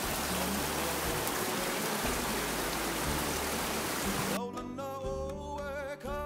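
Shallow stream running and trickling over rocks, a steady rush of water. About four seconds in it cuts off abruptly and background music begins.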